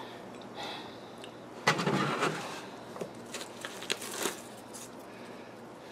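Rustling and crinkling of tissue paper and packing as a hand rummages in a cardboard box to lift out a plant cutting, with a few short clicks and light knocks near the middle.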